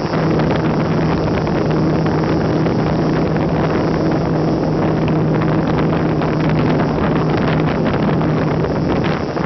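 Electric brushless motor and propeller of a Slow Stick RC airplane running steadily in flight, a constant hum, with wind rushing over the onboard camera's microphone.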